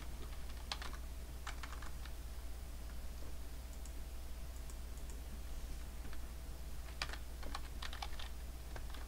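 Typing on a computer keyboard in short runs of keystrokes: a few about a second in, and a longer run near the end, over a steady low hum.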